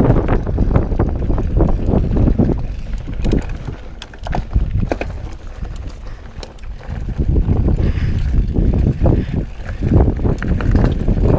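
Wind buffeting the camera microphone and tyres rumbling over a dirt trail as a Scott Voltage downhill mountain bike descends, with sharp clicks and rattles from the bike. The noise eases for a few seconds in the middle, then picks up again.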